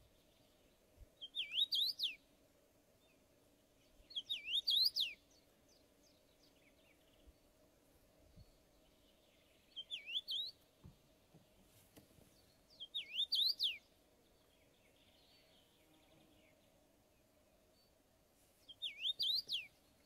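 Male common rosefinch singing: five short whistled phrases, each about a second long, of quickly rising and falling notes, spaced a few seconds apart.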